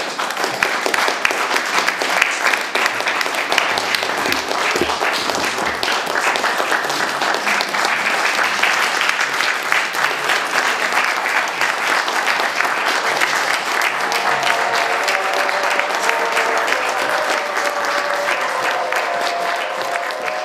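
Audience applauding steadily, the even patter of many hands clapping. About fourteen seconds in, music begins under the clapping.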